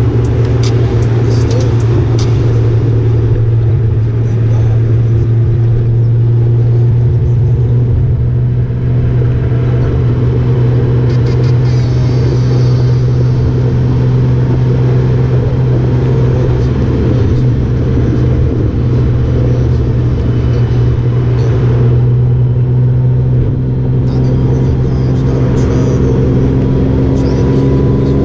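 Honda Gold Wing motorcycle running at steady road speed: a steady low engine and road drone, its pitch rising a little near the end.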